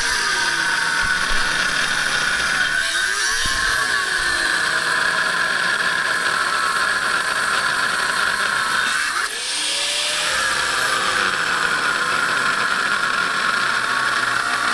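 Angle grinder running under load, grinding metal with a steady high whine. The whine breaks off briefly about nine seconds in, then the grinder spins back up and bites again.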